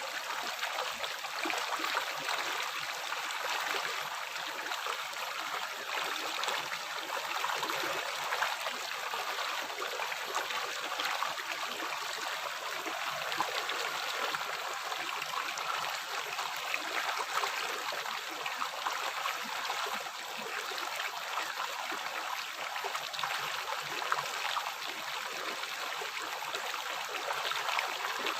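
River water flowing and splashing over rocks: a steady rushing and gurgling, strongest in the higher tones, with no lull or change.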